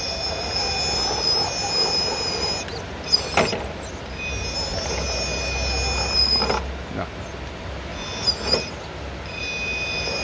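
Radio-controlled rock crawler's brushless motor running with a steady high-pitched whine as the truck creeps up rock under throttle. The whine cuts out and comes back twice, and there are two sharp knocks from the truck against the rock.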